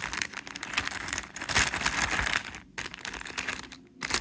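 Plastic packaging crinkling and rustling as a controller repair kit is handled and opened, with a dense spell of crackling about halfway through.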